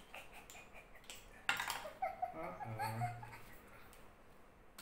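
Small clicks of plastic game pieces, with one sharp click about one and a half seconds in, followed by a child giggling.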